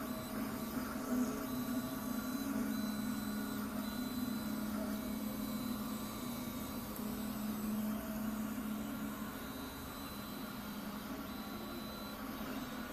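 MINGDA FDM 3D printer running mid-print: a steady hum, with faint high tones that come and go.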